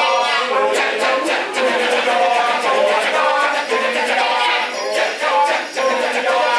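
Kecak chorus: many men chanting rapid interlocking "cak" syllables in a fast, dense rhythm, with a sung melody line held above it.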